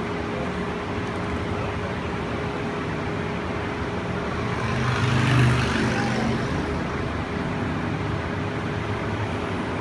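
Cable-driven BART Oakland Airport Connector people-mover car running along its guideway, heard from inside the cabin: a steady rumble with a constant hum, swelling louder for a second or two about five seconds in before settling back.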